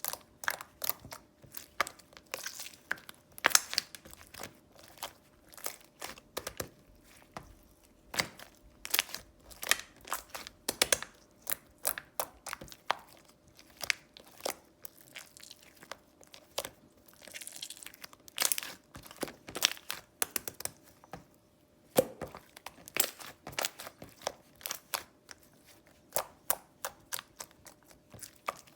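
Close handling of crinkly material such as paper or plastic: an irregular run of sharp clicks and taps mixed with rustling and brief tearing.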